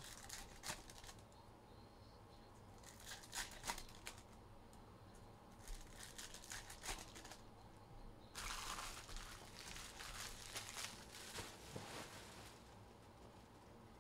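Foil wrappers of trading card packs crinkling and tearing as they are opened. It comes faintly in short spells, with a longer stretch past the middle.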